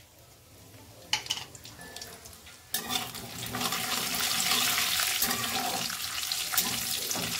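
Cumin seeds and red chillies frying in hot ghee in a kadhai, stirred with a metal spatula: after a quiet start with a single knock about a second in, a sizzle starts suddenly about three seconds in and grows louder.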